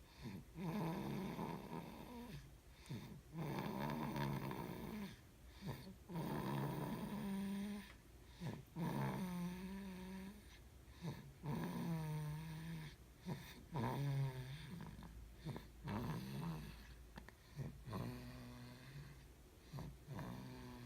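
Snoring: a buzzing, pitched snore on each breath, repeating about every two seconds.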